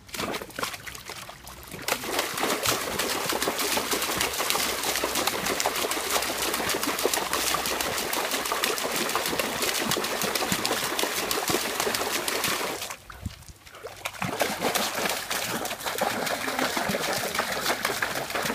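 A puppy splashing hard in a plastic storage tote full of water, with water sloshing and spraying in a rapid run of splashes. It starts softer, builds after about two seconds, and breaks off in a short lull about thirteen seconds in before resuming.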